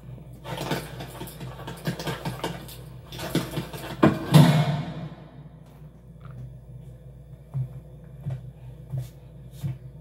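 Animated-film Foley in a tiled restroom: a busy run of small knocks and rustles, one loud hit about four seconds in that hisses away over about a second, then a few soft, spaced thumps.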